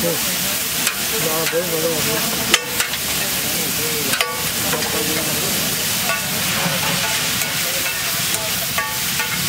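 Chopped onion and tomato sizzling in oil on a large flat griddle (tawa) while a steel ladle and a flat spatula stir and scrape through them. There are two sharp clanks, about two and a half and four seconds in.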